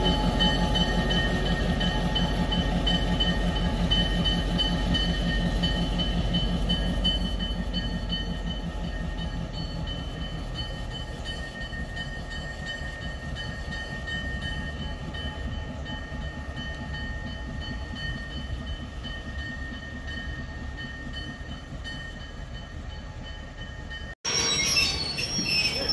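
Wabash F-unit diesel locomotive running light and moving away: its engine rumbles with an even pulse that fades steadily as it recedes, with a few thin steady high tones above it. Near the end the sound cuts abruptly to louder train noise, with wheels squealing.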